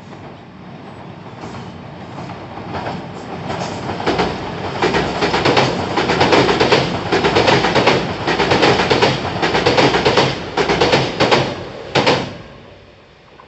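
Nankai Koya Line electric train crossing a steel girder railway bridge: a rumble and rattle of the bridge deck that builds as the train approaches, with a rapid run of sharp wheel clacks over the rail joints as the cars pass. It dies away quickly near the end.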